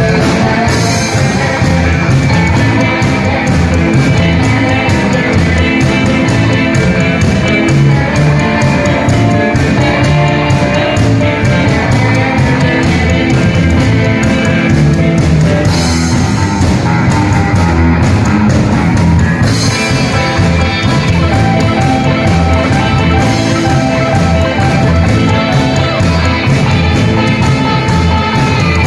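Live rock'n'roll band playing: upright double bass, two electric guitars and a drum kit.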